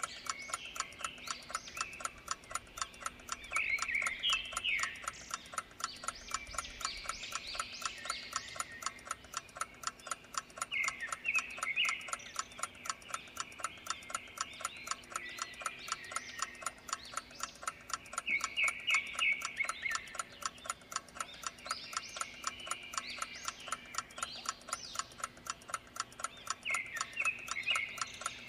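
A clock ticking steadily as a countdown-timer effect, over a background of chirping calls. Short bursts of quick trills recur every seven or eight seconds.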